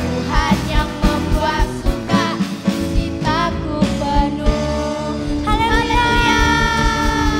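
Two girls singing an Indonesian children's worship song with a live band of electric bass, keyboard, drum kit and acoustic guitar, the drums keeping a steady beat. The singers hold one long note near the end.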